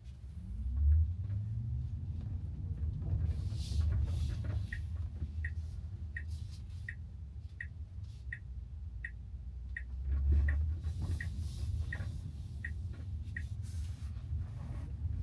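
Tesla Model Y on the move: a low rumble of road noise throughout. A turn-signal indicator ticks evenly, about one and a half ticks a second, from about five seconds in until shortly before the end.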